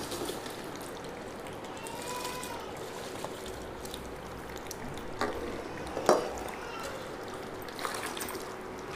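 Soaked basmati rice being tipped into a large aluminium pot of hot water, then water sloshing and trickling as a steel bowl is worked through it. Two sharp clinks come about five and six seconds in.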